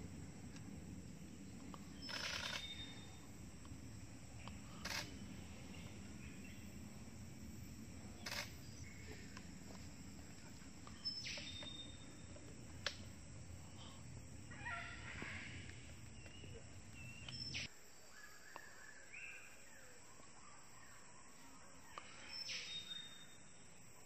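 Forest birds calling: a short, rapid rattling call with high notes comes about four times, with a few sharp clicks and other scattered calls, over a low rumble that cuts off suddenly about three quarters of the way through.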